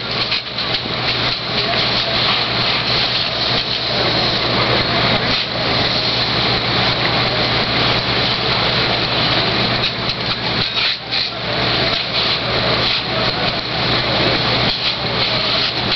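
Fire truck engines and pumps running steadily, a constant low hum under a broad, steady hiss.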